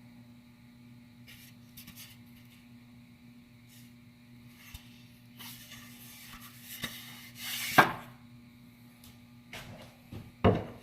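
Handling of the freshly cut wooden workpiece at the miter saw: light clicks, a scraping slide that ends in a sharp knock about eight seconds in, and a couple of knocks near the end, over a faint steady hum. The saw motor is not running.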